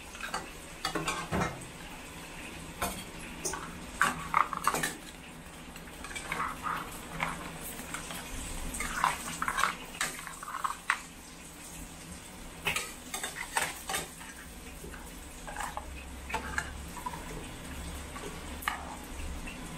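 A metal spatula scraping and clinking against a stainless steel pan as crab pieces in thick sauce are stirred, in irregular strokes.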